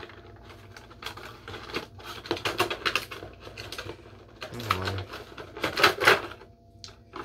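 Cardboard toy box being opened by hand: irregular clicks, snaps and rustles of card and plastic packaging, loudest about six seconds in.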